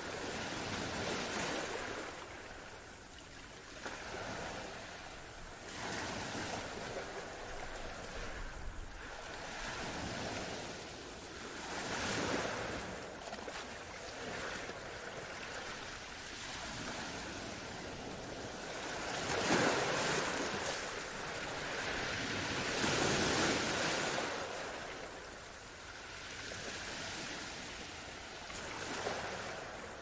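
Ocean surf: waves breaking and washing in, swelling and fading every few seconds, with the biggest swells about two-thirds of the way through.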